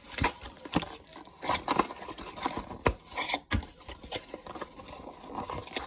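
Packaging being handled as a charger plug is worked out of its box: crinkling with irregular clicks and taps.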